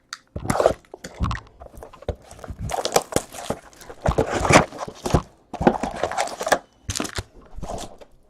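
Trading card pack wrappers being torn open and crinkled, a run of irregular tearing and crackling rustles with sharp clicks.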